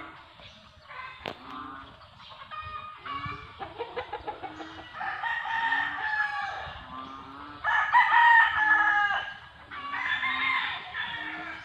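Roosters crowing, with chickens clucking: a few short clucks early, then three long crows about five, eight and ten seconds in, the one near eight seconds loudest.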